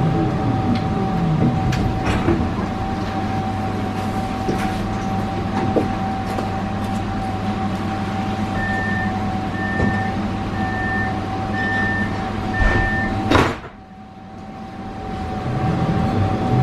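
Inside a Pesa Swing 120Na low-floor tram: the traction motors' whine falls as the tram brakes to a stop, then the stationary tram hums steadily. Five short beeps of the door-closing warning follow, then a knock as the doors shut and the car goes quieter. Near the end the motor whine rises as the tram pulls away.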